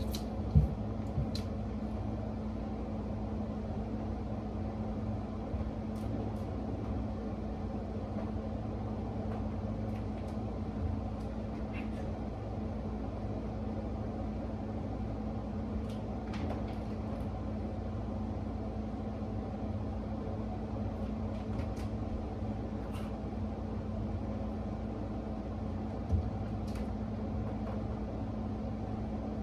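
A steady mechanical hum, with a few faint clicks and knocks, the loudest just after the start and another near the end.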